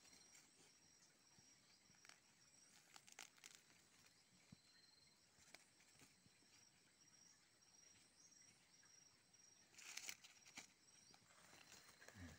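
Near silence: faint rustling and scraping of soil and dry leaves as hands work at a snare on the ground, loudest about ten seconds in. Faint steady high insect trilling runs underneath.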